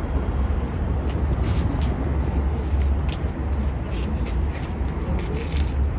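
Steady low rumble of wind buffeting the microphone, with scattered short faint clicks.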